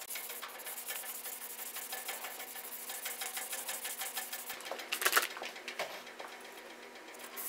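1000-grit sandpaper on a small paint-stick block, rubbed in rapid, even back-and-forth strokes over a clear-coated steel fender to cut down a paint run. The paper is working dry, without water, and loading up. A brief louder noise comes about five seconds in, with quieter scraping after it.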